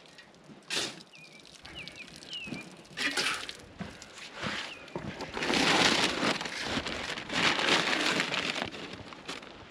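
Gritty scraping and scooping of concrete work, in several strokes, with two longer, louder spells in the second half. A few faint bird chirps come about two seconds in.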